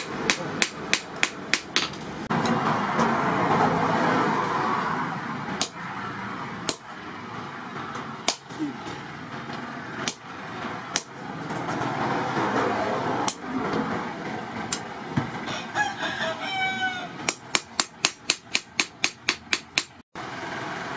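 Hand hammer ringing on a hot steel blade laid on a steel post anvil. There is a quick run of blows at the start, then scattered single strikes, then a fast even run of about four or five blows a second near the end. A rooster crows once in the background partway through.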